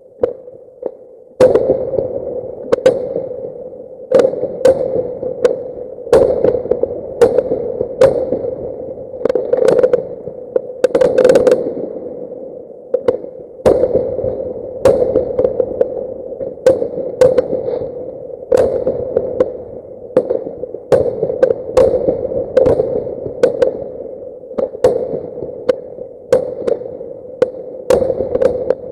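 Fireworks bangs going off in quick succession, several a second, sped up to double speed, over a steady hum. The bangs begin about a second and a half in.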